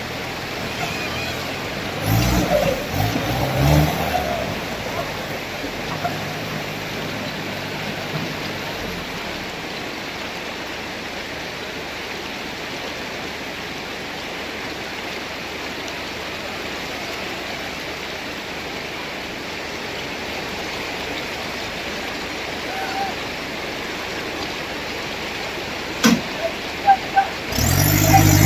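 Steady rushing noise throughout, with an off-road vehicle's engine heard under it and revving up near the end; brief voices about two to four seconds in.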